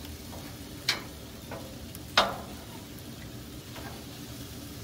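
Chicken pieces sizzling on a Blackstone propane griddle while metal tongs turn them, with sharp clacks of the tongs against the steel cooktop about a second in and, loudest, a little after two seconds.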